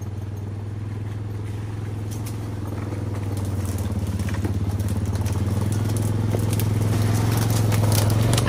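ATV (quad) engine running at a steady drone, growing steadily louder as it approaches.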